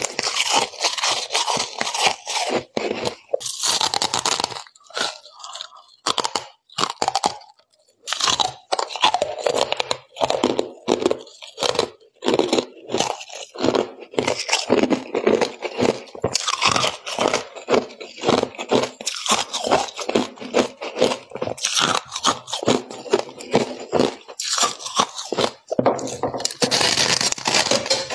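Freezer frost and ice crunching in a fast, irregular run of crisp crunches, with some scraping. The crunches thin out and go quieter about five seconds in, then pick back up at full density about eight seconds in.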